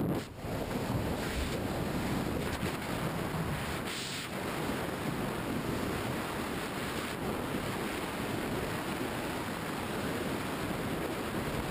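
Steady roar of wind rushing over the camera microphone during tandem skydive freefall, with a brief dip just after the start.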